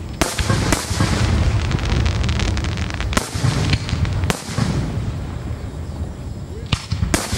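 Aerial fireworks shells bursting overhead: six sharp booms, two near the start, two around the middle and two near the end, with continuous crackling and rumble between them.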